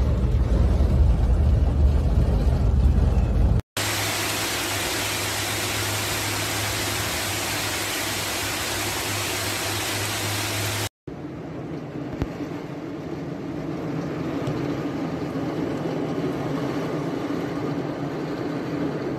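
Heavy rain and rushing floodwater in a string of short clips that cut off abruptly: first a deep rumble, then about seven seconds of the loud, even hiss of a torrential downpour, then a quieter steady rain noise.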